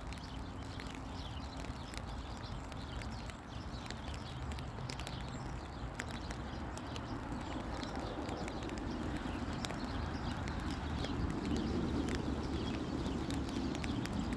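Horse grazing, tearing off grass and chewing it, heard as a run of irregular crisp clicks and crunches over a low steady rumble.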